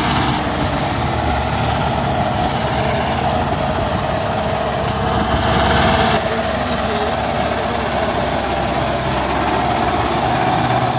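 Massey Ferguson tractor's diesel engine running steadily as it pulls a mouldboard plough through the field.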